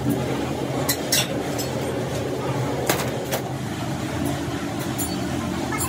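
Steady hum of factory machinery, with several sharp metallic clicks and knocks at intervals, the loudest about three seconds in.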